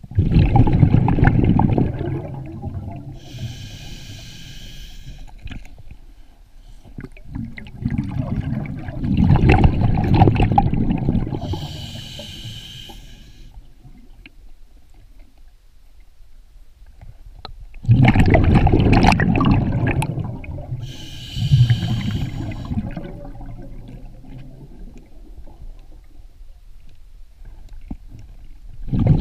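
Scuba diver breathing through a regulator underwater: a rush of exhaled bubbles about every nine seconds, each followed a few seconds later by a short, high hiss as the next breath is drawn.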